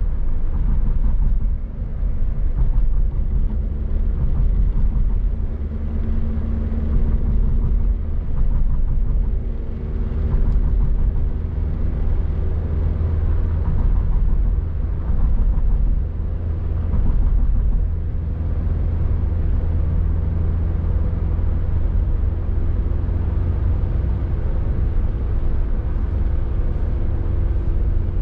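Toyota Rush heard from inside the cabin while driving: a steady low rumble of engine and road noise, with the engine hum shifting in pitch now and then.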